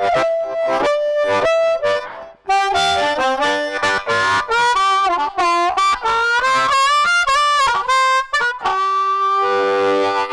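Amplified harmonica played cupped around a Blowsmeaway Ultimate 545 microphone through a Lone Wolf Harp Attack pedal with reverb and delay. It opens with short rhythmic chords, then a run of notes bending in pitch after a brief pause, ending on a long held note.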